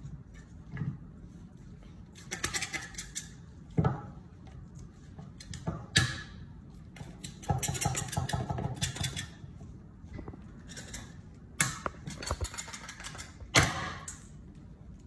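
Raw meat being butchered on a wooden cutting board: bursts of crackling as a knife cuts and gloved hands pull the meat and membrane apart, with several sharp knocks of knife or meat on the board.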